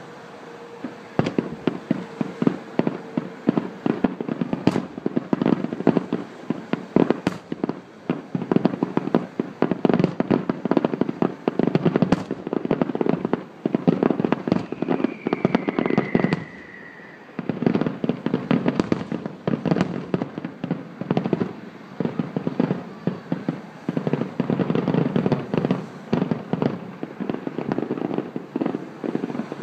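Grand finale of an aerial fireworks display: a dense, rapid barrage of shell bursts and bangs. There is a falling whistle about halfway through, then a brief lull before the bangs pile up again.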